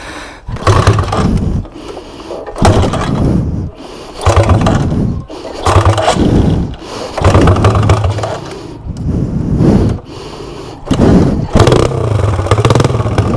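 150 cc upright-cylinder motorcycle engine being kick-started over and over: each kick turns it over with a brief burst of firing, about every one and a half to two seconds, and it does not keep running.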